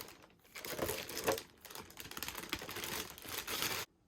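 Packaging crinkling and rustling as it is handled and pulled open, with a dense crackle of small ticks that stops abruptly near the end.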